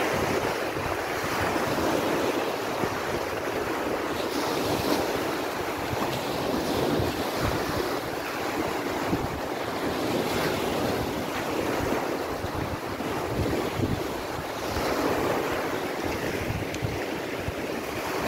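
Wind buffeting the phone's microphone over a steady rush of water where a shallow river meets the sea.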